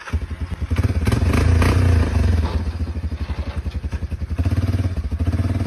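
An engine running loudly with a fast, even pulse. It revs up about a second in and eases back after about two seconds.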